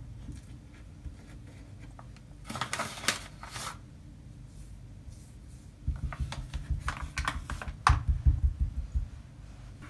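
Kitchen preparation sounds: runs of rapid light knocking, several strokes a second, with short bursts of scraping and rustling in between.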